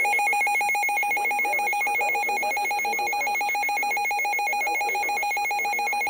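A weather alert radio sounds its electronic alarm: a loud, rapidly trilling two-tone warble. It signals that a severe thunderstorm warning has just been received.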